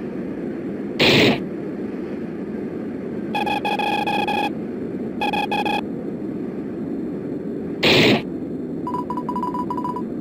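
Cartoon sound effects over a steady static-like hiss and rumble. Two short loud noise blasts come about a second in and again near the end. In between, a buzzy pitched beeping plays in two bursts while a character's subtitled line is on screen, and a faster, higher beeping follows near the end, like text-blip voices standing in for dialogue.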